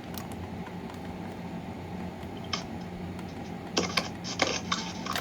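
Plastic clicks and taps from handling a First Alert FACO carbon monoxide detector and pressing its test button, one about halfway and a cluster near the end, over a steady low hum. The detector itself stays silent: the test is failing.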